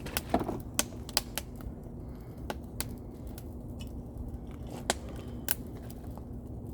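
Wood campfire crackling, with irregular sharp pops and snaps over a low steady hum.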